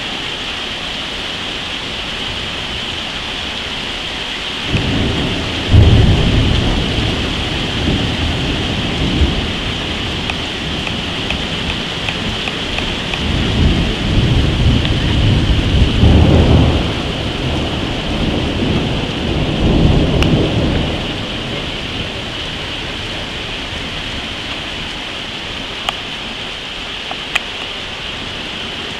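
Heavy rain hissing steadily through a thunderstorm. Thunder breaks sharply about six seconds in and rolls on, with further long rumbles around the middle and about two-thirds of the way through.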